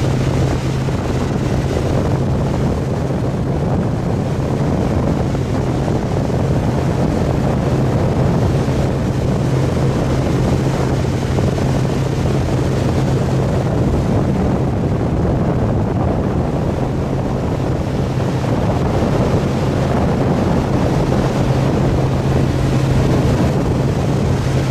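Tow boat's engine running steadily at speed while pulling a wakeboarder, a constant low hum, with water rushing in the wake and wind on the microphone.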